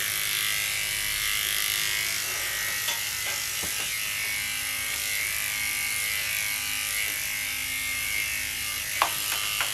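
Electric dog grooming clippers running with a steady buzz while a toy poodle puppy is trimmed, with a short sharp knock about nine seconds in.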